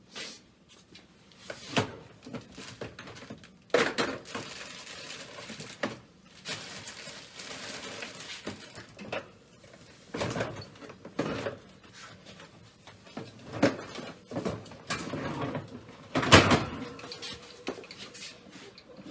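Tools and tool cases being handled and set down: irregular clatter and rustling, with several sharper knocks spread through, the loudest about 16 seconds in.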